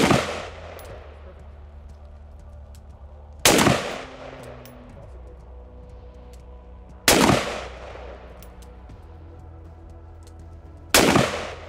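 Single shots from an AR-15 rifle in .223, one about every three and a half seconds. Each shot has a long echoing tail from the indoor range.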